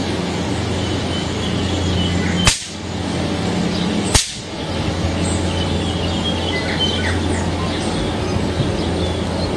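Two sharp electric cracks about a second and a half apart from a homemade high-voltage wire trap, over a steady low hum. Birds chirp faintly throughout.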